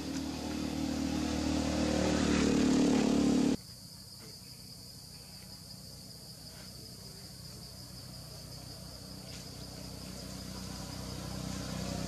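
Steady high-pitched drone of insects such as cicadas or crickets, under the low hum of a motor vehicle engine that grows louder over the first few seconds and cuts off suddenly. A similar engine hum builds up again near the end.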